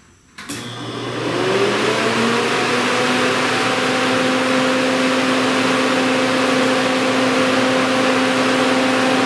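Flex-a-lite Black Magic 188 electric radiator cooling fan switched on: it starts abruptly, whirs up in pitch over about a second and a half, then runs steadily with a loud rush of air and a steady hum. It is running at full speed without a speed controller, a whole lot of fan.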